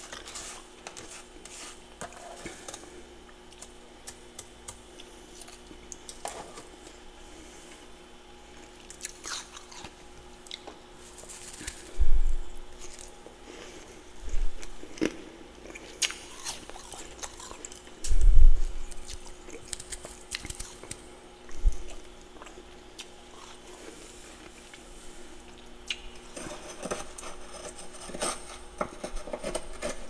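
Crunching and chewing of powdery freezer frost, with a metal spoon scraping and clicking as frost is dug from the freezer walls. A few loud dull thumps come in the middle, and a faint steady hum runs underneath.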